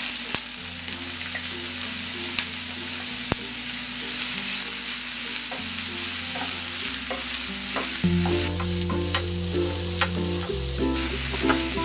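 Chopped onion, ginger, garlic and green chilli sizzling in hot oil in a nonstick frying pan while a wooden spatula stirs them around, with scattered light ticks of the spatula against the pan. Soft background music runs underneath.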